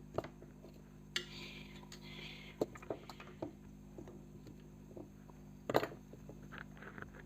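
Small clicks and taps from hands handling ceiling-fan wiring and parts, with a short scraping rustle about a second in and a sharper knock near the six-second mark, over a faint steady hum.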